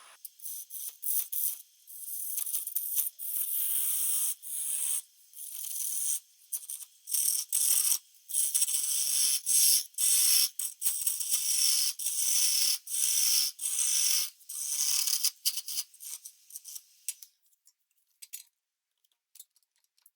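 A turning gouge cutting into a spinning blank of green, wet maple on a wood lathe: repeated hissing, scraping passes separated by short pauses. The cutting stops about three seconds before the end.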